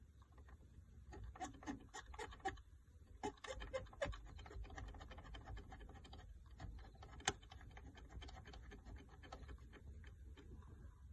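Faint scattered clicking and scratching of hand work on small parts, with one sharper click about seven seconds in.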